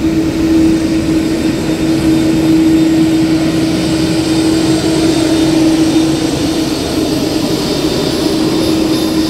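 Twin jet engines of an Airbus A330 airliner running at low taxi power as it rolls close past: a loud, steady drone with a constant hum.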